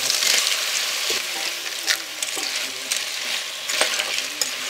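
Ghonghi, freshwater snails in their shells, sizzling in hot oil in a karahi while a spatula stirs them. A few sharp clicks come through as the shells and the spatula knock against the pan.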